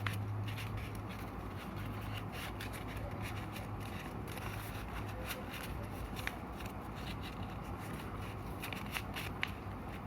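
A4 paper being folded and creased by hand: scattered soft rustles and crinkles over a low steady hum.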